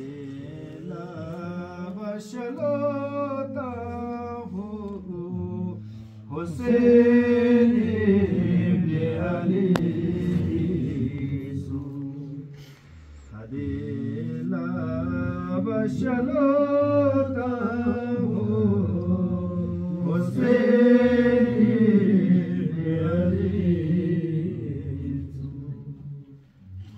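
A man chanting a devotional qasida unaccompanied, in long melodic phrases with short breaks about six and thirteen seconds in.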